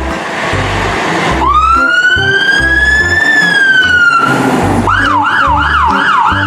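Emergency siren: a long wail that climbs slowly and then drops away, followed near the end by a fast yelp warbling up and down about two to three times a second, over background music with a steady beat.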